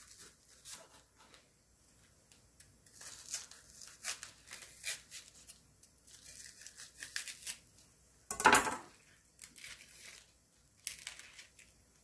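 Kitchen knife cutting into crisp bok choy stems on a wooden cutting board, with scattered crackling and tearing as the stalks are split and pulled apart by hand. One louder thump about eight and a half seconds in.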